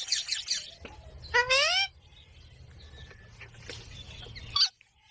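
Indian ringneck parakeet calling: a harsh screech at the start, then a loud call that rises in pitch about a second and a half in, and a short sharp call near the end.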